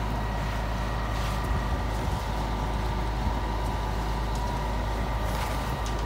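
Diesel engine of a concrete mixer truck running steadily, a constant low rumble with a steady high whine over it.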